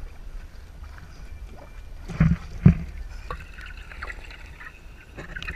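Water lapping against a boat's hull with a low wind rumble on the microphone. Two dull thumps about half a second apart come about two seconds in.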